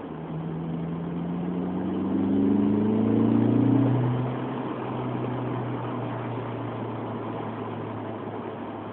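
Honda S2000's four-cylinder engine, breathing through a K&N air filter and a homemade exhaust, rising steadily in revs for about four seconds. It then drops back to a steady lower drone.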